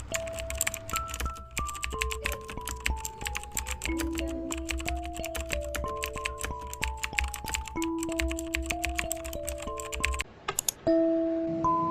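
Rapid computer keyboard typing, a dense run of clicks, over a slow melody of single held notes. The typing stops about ten seconds in while the melody goes on.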